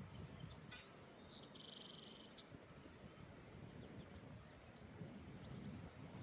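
Faint songbird calls: a thin high whistled note, then a short rapid buzzy trill lasting under a second, with a few scattered chirps. Beneath them is a low wind rumble.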